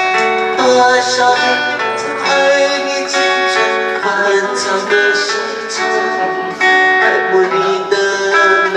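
Acoustic guitar music: a song played on a guitar, notes plucked and strummed continuously.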